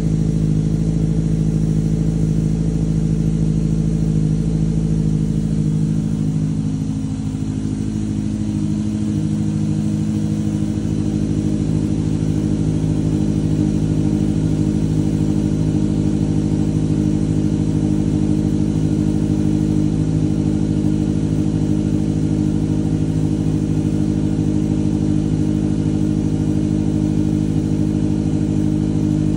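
2006 Caterham Super Seven SV's four-cylinder engine idling steadily just after a cold start. About seven seconds in, the idle dips slightly, then settles and holds even.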